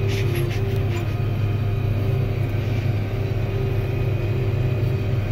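Tractor engine running steadily under load, heard from inside the cab as it pulls a tandem disc through pea stubble. It makes a low drone with a steady higher hum over it, and a few light rattles in the first second.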